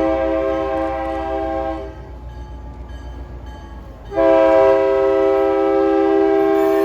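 Locomotive horn on former Canadian National GP9U 7032 sounding a chord of several tones. A long blast stops a little under two seconds in, and after a short pause a second, louder blast starts and holds on. It is the crossing signal for a grade crossing.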